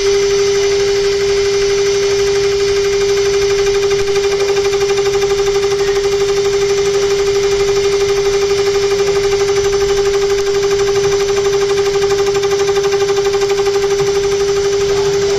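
High-speed spindle of a CNC bangle-cutting machine running at a steady high-pitched whine while its small cutter carves a half-round C-cut design into a turning metal bangle. A fast, even pulsing runs through the whine as the cutter works.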